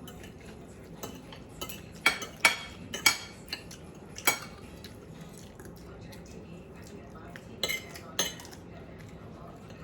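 Eating utensils clinking and scraping against dishes: a cluster of sharp clinks about two to four seconds in, and two more near the end.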